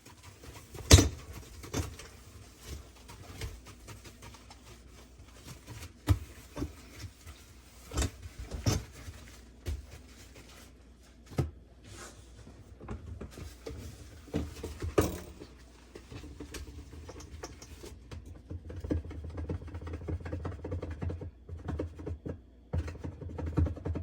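Handling noises: scattered knocks, clicks and rubbing as things are moved about, with a low steady hum joining about three quarters of the way through.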